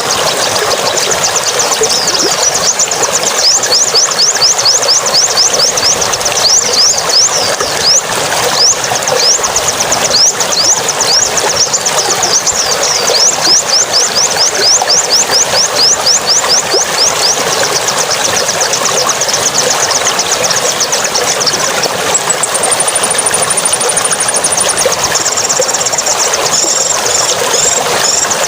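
A small songbird calling in a long run of quick, sharp, high notes, several a second, over a steady rushing noise like running water.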